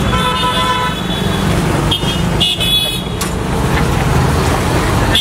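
Road traffic running steadily, with vehicle horns honking: one long honk at the start, then shorter honks about two and three seconds in.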